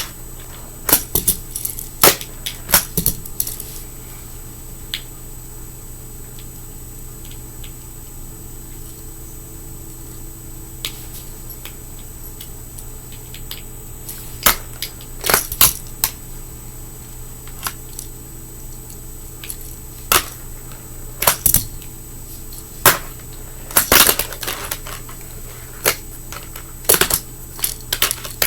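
Fingerboard clacking on a hard surface: tail pops, deck flips and landings as small sharp clicks and knocks in quick clusters, with a long lull between about four and fourteen seconds in. A steady low hum lies underneath.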